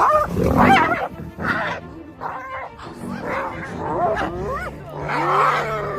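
Spotted hyenas calling: a run of short yelping cries that swoop up and down in pitch, one after another, with music underneath.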